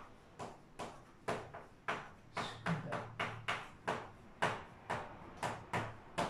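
Chalk writing on a blackboard: a quick series of sharp taps and short scrapes, one for each stroke of the characters, about three a second.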